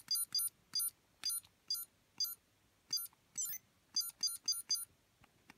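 Digimon D-Ark Ver. 15th digivice toy beeping: about a dozen short, high electronic button beeps at an uneven pace, with a brief warbling jingle midway, as its menus are stepped through to link with a second D-Ark.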